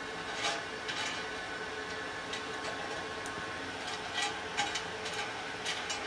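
Scattered sharp metal clinks and scrapes as a piece of steel is worked into burning coke in a brake drum forge with pliers. Underneath is a steady whirring hum.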